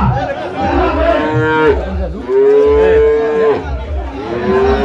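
Young cattle mooing: three long, steady calls, each lasting over a second, one after another.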